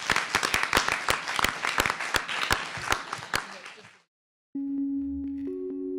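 Audience applause, many people clapping, fading and cut off about four seconds in. After a brief silence, held musical notes begin.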